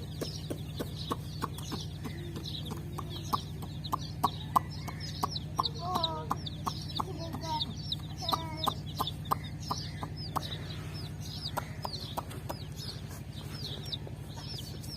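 A group of chicks peeping constantly, with many short high chirps, joined by a few lower calls around six to nine seconds in. Frequent sharp ticks and a steady low hum run underneath.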